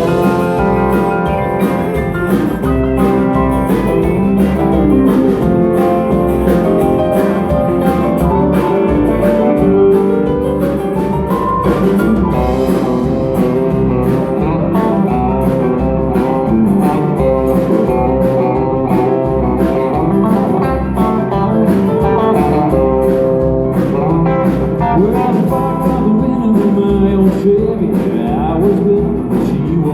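Live country band playing an instrumental passage: a guitar lead over bass and a steady drum beat.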